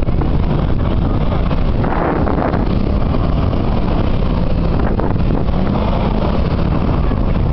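Steady drone of Toyota Land Cruiser V6 engines driving over sand dunes, mixed with wind buffeting the microphone.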